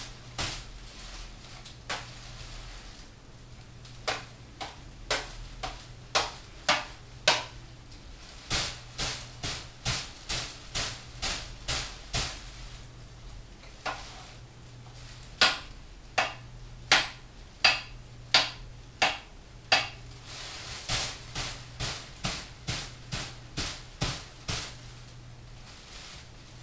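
Rapid strikes against a hanging practice dummy during a knife-fighting drill: sharp knocks at about two or three a second, in runs broken by short pauses.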